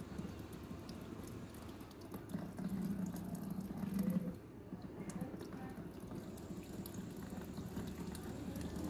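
Salted lukewarm water running and dripping out of the nose during a jal neti nasal rinse. A louder low sound comes from about two and a half to four seconds in.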